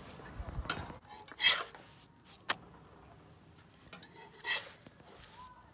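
Spatula scraping across a flat-top griddle, sliding under quesadillas to flip them. There are a few separate scrapes, the loudest about a second and a half in and another about four and a half seconds in, with a light click between them.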